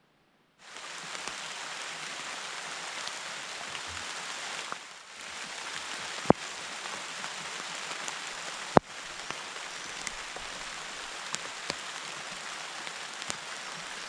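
Steady rain falling on leaves, an even hiss that begins about half a second in, with two sharp loud taps partway through.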